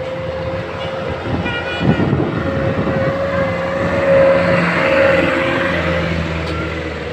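A large bus drives past with its engine and road noise building to their loudest about four to five seconds in, then easing. A steady high tone holds throughout.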